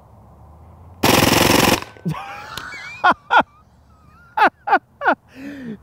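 Hatsan Blitz .30-calibre pre-charged pneumatic air rifle firing on full auto: one very fast burst of shots, under a second long, about a second in, emptying its 16-round magazine.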